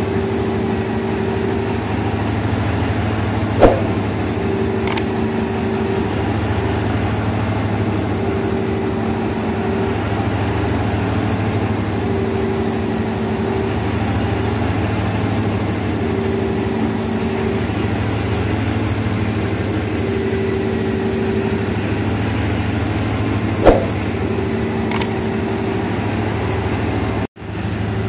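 Class W3 diesel locomotive idling while standing at the platform: a steady low engine drone with a humming tone that swells and fades every couple of seconds. Two sharp clicks stand out, about twenty seconds apart.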